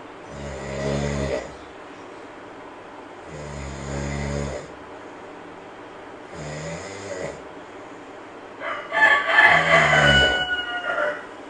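A sleeping monkey snoring in a steady rhythm, one snore of about a second every three seconds. Near the end comes a louder, longer snore with high whistling tones in it.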